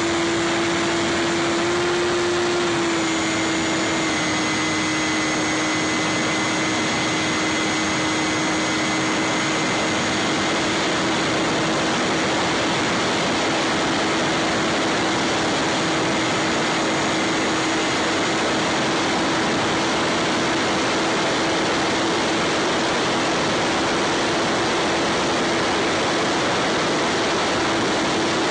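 Electric motor and propeller of a Bixler 3 foam RC plane in flight, recorded by its onboard camera: a steady droning whine over a loud hiss of rushing air. The pitch dips slightly about three seconds in and then holds.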